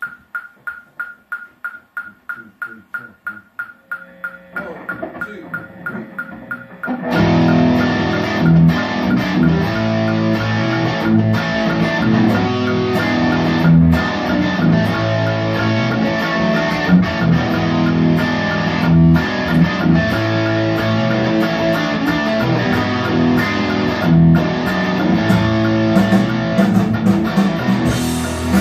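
A metronome click track ticking about four times a second as a count-in, then about seven seconds in a full backing track with drums and bass comes in and an electric guitar plays a rock rhythm part along with it, through a Bogner Shiva 2x12 amp.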